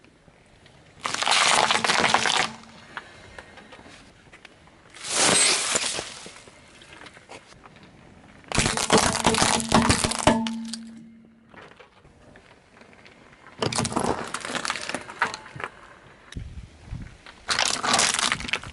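A car tyre rolling over and crushing objects on asphalt: five separate bursts of crunching and cracking, each a second or two long. Long green peppers, small plastic toys and a plastic jelly cup split and burst under the tread.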